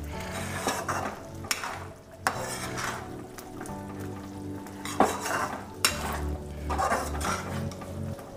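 Slotted metal ladle stirring fried foxnuts and dry fruits through hot jaggery syrup in a metal kadai: wet scraping and sloshing, broken by several sharp knocks of the ladle against the pan, the loudest about five seconds in.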